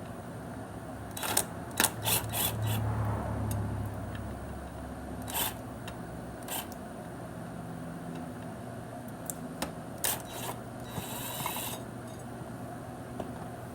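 Scattered metallic clicks and clinks of the primary cover bolts being worked out and handled on a Harley-Davidson Fat Boy. A quick cluster of clicks comes in the first three seconds and single ones follow, with a short rattle about eleven seconds in.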